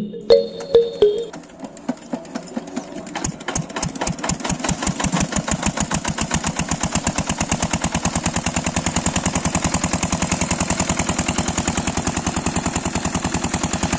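A small engine running with a rapid, even putter: a few uneven pops at first, quickly picking up speed into a steady beat.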